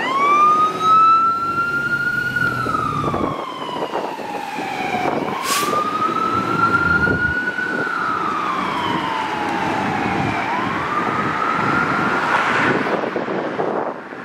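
2021 Pierce Arrow XT fire engine's siren sounding a slow wail: a single tone that winds up at the start, then rises and falls in long sweeps, starting over about every five seconds. A low engine rumble sits under it at first, and a short sharp burst is heard about halfway through.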